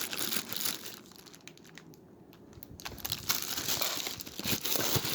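Packaging crinkling and rustling as ceiling fan parts are handled and lifted out of their box, quieter for a moment about a second in, then busier again.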